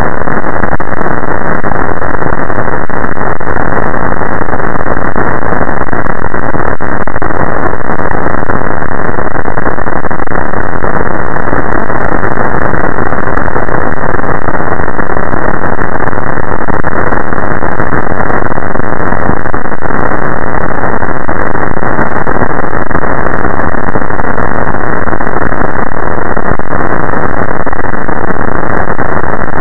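Very loud, steady static hiss with a dull, muffled tone, pushed to the maximum volume, with no pitch, rhythm or break in it.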